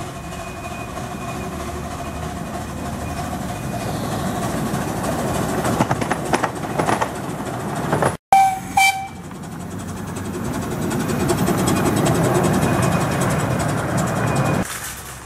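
Miniature passenger steam train approaching and passing close by, its wheels clattering over the track as it grows louder. About eight seconds in, just after a sudden break in the sound, the locomotive gives a short whistle toot. The carriages then rumble past, and the sound drops away sharply near the end.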